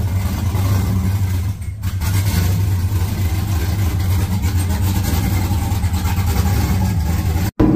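Cammed LS1 5.7 L V8 of a 1999 Pontiac Trans Am running at idle, a steady low rumble with a brief dip about one and a half seconds in.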